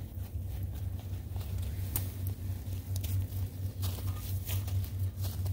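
Campfire crackling, with scattered sharp pops and snaps over a steady low rumble.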